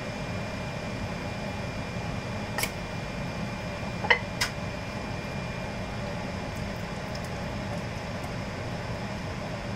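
Steady fan-like hum with a thin high whine, and three light clinks of cookware about two and a half and four seconds in.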